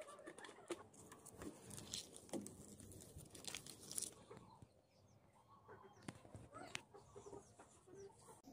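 Faint crinkling and crackling of clear plastic film stretched over a blue plastic barrel as hands press and smooth it, in scattered short clicks.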